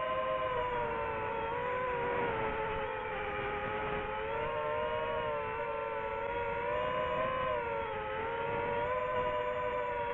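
DJI FPV drone's electric motors and propellers whining steadily, the pitch drifting up and down with the throttle in flight, over a rushing haze of air noise.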